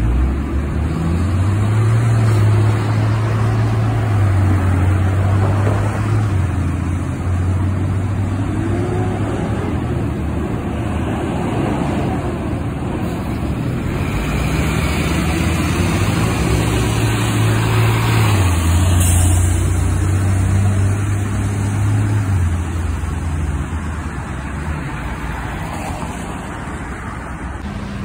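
Heavy diesel trucks pulling away through an intersection. The low engine note climbs and drops back at each gear change, twice, over steady traffic and tyre noise on a wet road.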